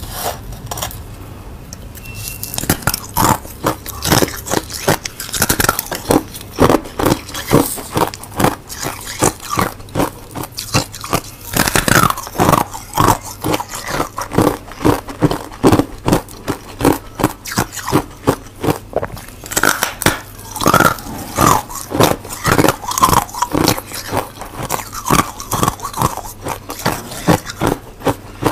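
Close-up crunching of frozen freezer-frost ice being bitten and chewed, sharp crunches coming several times a second. The crunching starts about two seconds in, after a moment of low steady hum.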